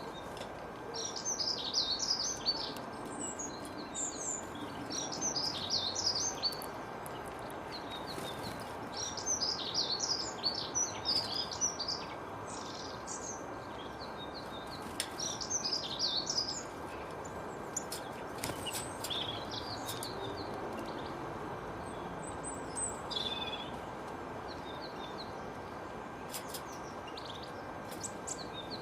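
Small songbirds chirping in quick clusters of short, high notes, busiest through the first half and sparser after, over a steady background hiss with a faint constant tone.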